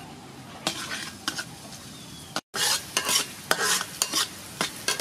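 Chopped garlic sizzling in hot oil in a metal wok, stirred with a metal ladle that scrapes the pan in repeated strokes. The sound breaks off briefly about two and a half seconds in, and the scraping is louder after the break.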